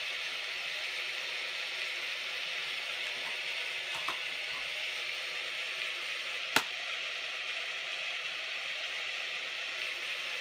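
Steady hiss of rain falling outside, with a faint tick about four seconds in and one sharp click a little past halfway.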